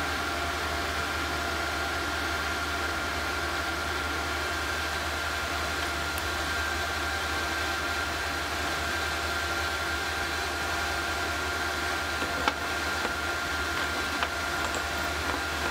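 Small induction heater running steadily while melting bronze in a graphite crucible: a constant high whine over a hiss and a low hum. A couple of sharp clicks sound near the end.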